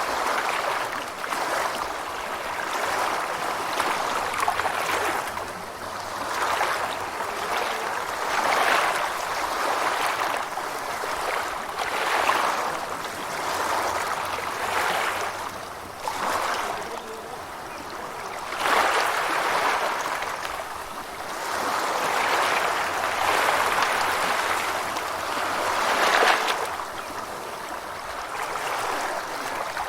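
Gentle ocean waves washing in, a hissing wash that swells and falls back every two to three seconds.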